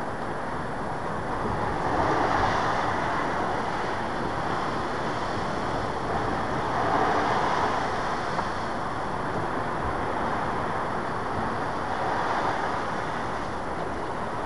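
Lake Erie waves washing onto the shore: a steady rushing noise that swells three times, about every five seconds, with wind on the air.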